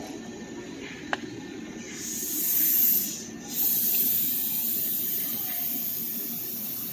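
Compressed air hissing from a stopped electric train's air system, in two bursts: a short one, a brief break, then a longer one that slowly fades. A single sharp click about a second in.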